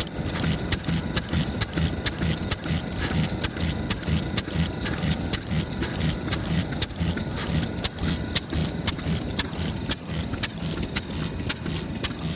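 Large Kubota FF-type 10 hp single-cylinder stationary engine running with an even, regular beat of sharp firing knocks. The rhythm is steady, the engine no longer misfiring after its spark plug was replaced.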